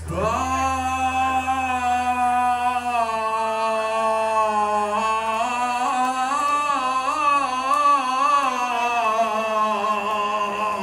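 A male singer holding one long sung note for about ten seconds, sliding up into it at the start and wavering in pitch toward the end, with little or no band sound behind it.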